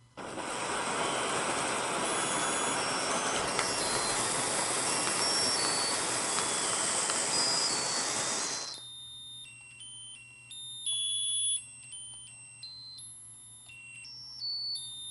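Sparkler fountain of a lotus-flower musical birthday candle burning with a loud, even hiss that cuts off suddenly after about eight and a half seconds. Under it and after it, the candle's electronic chip plays a tinny beeping tune.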